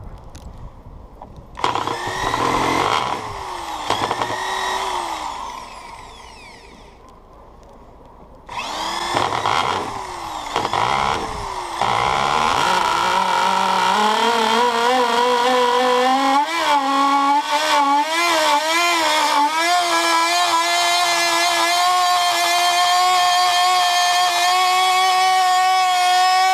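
MDS-6.5 two-stroke micro engine with a tuned resonance pipe being spun over by an electric drill starter in two bursts of a few seconds each. About twelve seconds in it catches and runs on its own, its pitch climbing in wavering steps. From about twenty seconds it holds a steady, very high-pitched scream at wild revs.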